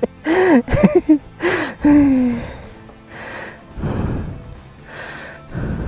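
A person's voice making a few short, wavering wordless exclamations, followed by four loud, heavy breaths roughly a second apart.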